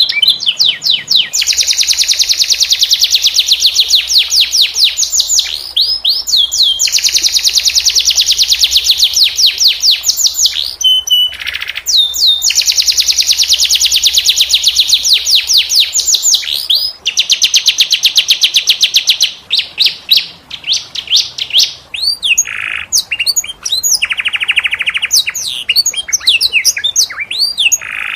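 Domestic canary singing in long, very fast rolling trills of repeated high notes, each lasting a few seconds with short breaks between. Toward the end the song turns to shorter, more varied phrases.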